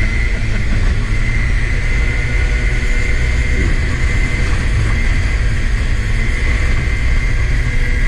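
Street go-kart engines running steadily at cruising speed, with a steady high whine over a heavy uneven rumble of wind on the microphone.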